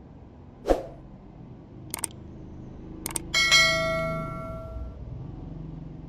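A sharp knock, then a few light clicks, then a single bell-like chime about three seconds in that rings out and fades over a second and a half.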